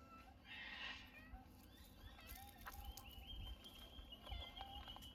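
Near silence outdoors: faint ambient noise, with a brief soft rustle about a second in and a thin, steady high tone from a little past halfway.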